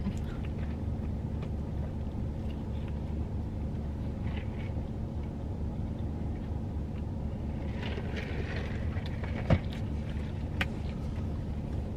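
Steady low hum of a car idling, heard from inside the cabin, with faint chewing and mouth sounds. A sharp click comes about nine and a half seconds in.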